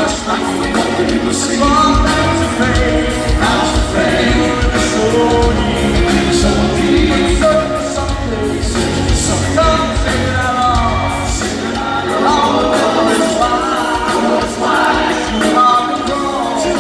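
Live rock band playing in an arena, heard from the audience: a male lead vocal over piano, guitars and drums, with a steady beat.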